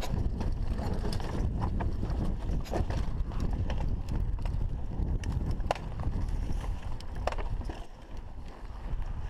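Mountain bike riding fast over a rough dirt and stone singletrack: the tyres rumble steadily over the ground, and the bike rattles with frequent sharp clicks and knocks from its chain and frame on the bumps.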